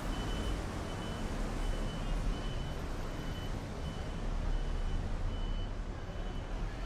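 A steady series of short, high electronic beeps, about three every two seconds, over the low rumble of street traffic.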